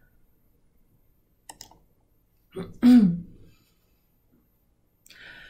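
A single soft mouse click as the presentation slide is advanced, then a brief wordless vocal sound from the narrator, falling in pitch, followed by a soft breath near the end.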